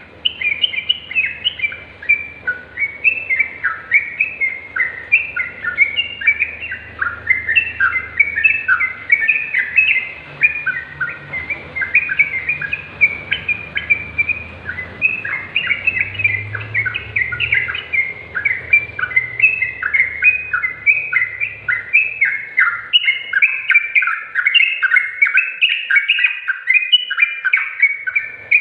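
Yellow-vented bulbul singing a continuous, fast string of short, bubbly chirping notes, the kind of song used as masteran to get other bulbuls singing. A faint low hum lies under the song until about two-thirds of the way through.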